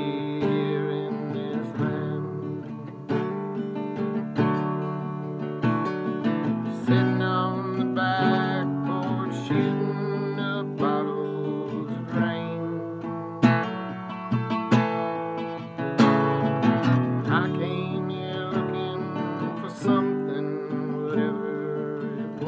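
Small-bodied acoustic guitar played as song accompaniment, strummed chords ringing on with a few sharper accented strums.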